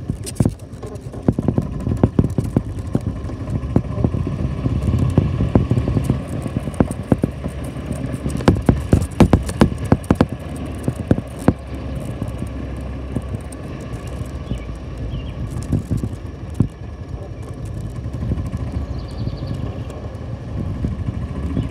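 Golf cart driving along, its motor running steadily under frequent rattles and sharp knocks, the knocking busiest about nine to eleven seconds in.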